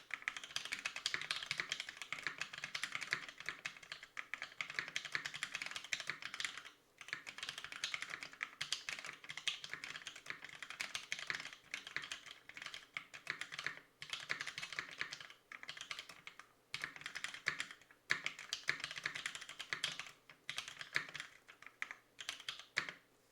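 Continuous fast typing on a Fusion60 60% mechanical keyboard with NovelKeys Cream linear switches lubed with Krytox 205g0, mounted on a brass plate. Rapid keystrokes in bursts with a few short pauses, stopping just before the end.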